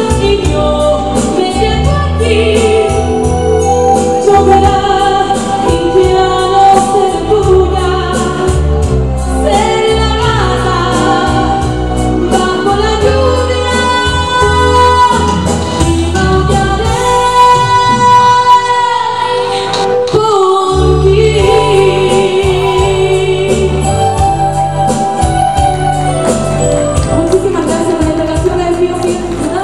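A woman singing a ballad live into a handheld microphone, amplified over an instrumental backing with a steady bass line. The bass drops out for a few seconds past the middle while her voice holds long notes, then comes back.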